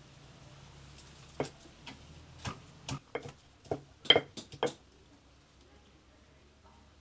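Stone pestle knocking in a stone mortar while crushing herbs: about ten irregular knocks over some three seconds, the loudest near the end, then it stops.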